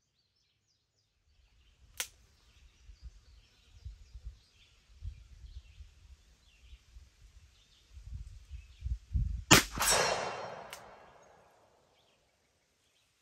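A single shot from a Smith & Wesson Model 629 .44 Magnum revolver about nine and a half seconds in, firing a light cast-bullet handload, followed a fraction of a second later by the clang of the steel gong 50 yards downrange ringing out for over a second. A sharp click about two seconds in and low rumbling noise come before the shot.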